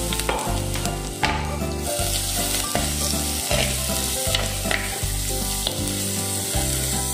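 Sliced onions sizzling in hot oil in a clay pot while being stirred with a metal spoon, with a couple of sharp clicks of the spoon against the pot.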